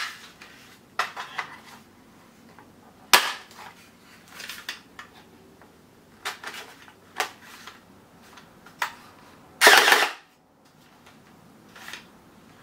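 Plastic gel ball blaster rifle being handled: scattered clicks and knocks of its hard plastic body under the hands, with a longer, louder rustle about ten seconds in.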